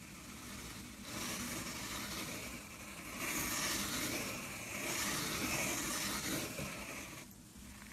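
Fingers rubbing and pressing across loose glitter on metallic slime: a steady gritty, scratchy rustle that starts about a second in, grows louder midway and fades near the end.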